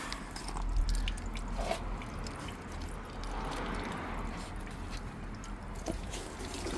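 Water dripping and trickling out of a freshly unblocked body drain hole in a Mercedes-Benz Sprinter van: the trapped water behind the van's sloshing noise. A brief low rumble comes about a second in.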